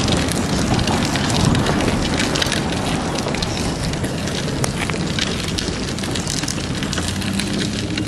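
Dense crackling rustle of a handheld phone's microphone being jostled and buffeted while walking, with a steady low rumble underneath.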